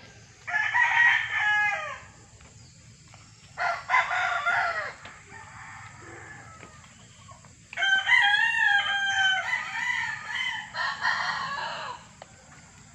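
Roosters crowing, about four long crows, the last two close together.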